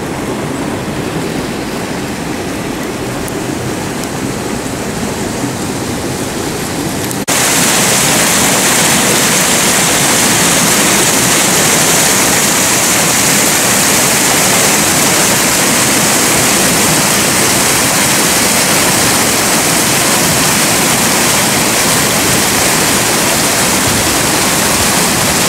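Steady rushing of water. About seven seconds in it jumps abruptly to a louder, brighter rush of whitewater pouring into a pool, which holds steady.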